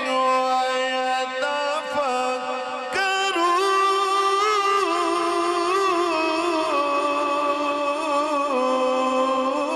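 Male Qur'an reciter chanting tilawat in long, ornamented held notes. The pitch jumps higher about three seconds in, then steps back down in stages.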